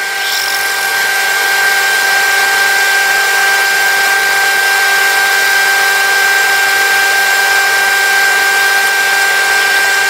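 Milling machine spindle running with a drill bit cutting down into a metal part in the vise: a steady machine whine with a clear high tone.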